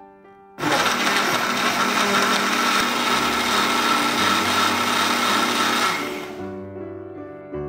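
Small personal blender with a jar mixing strawberries, banana and oat milk at speed: the motor starts abruptly about half a second in, runs steadily with a whine for about five seconds, then winds down and stops. Soft piano music plays underneath before and after the blending.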